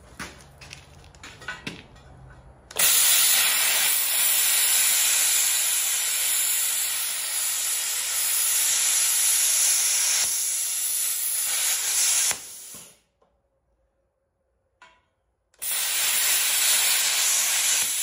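Plasma cutter cutting steel, a loud, steady hiss of the torch's air and arc. The first cut starts about three seconds in and runs for about ten seconds. After a short break a second cut starts near the end.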